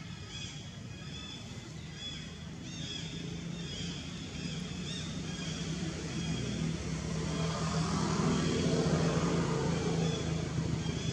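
A motor vehicle's engine passing out of sight, its hum growing louder to a peak about eight to nine seconds in, then easing off.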